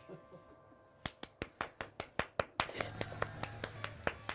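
Hands clapping in an even quick rhythm, about five claps a second, starting about a second in and growing busier from about three seconds in.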